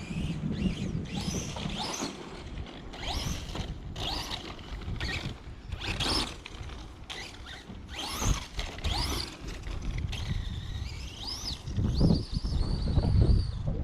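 Redcat Volcano EPX RC truck with a brushless motor being driven, its motor whining up and down in pitch again and again as it speeds up and slows, over a low rumble.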